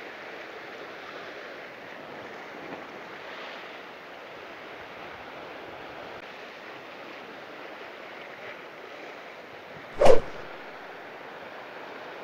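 Ocean surf washing steadily over a rocky shore. About ten seconds in, a single short, sharp, loud sound cuts in, then the surf continues.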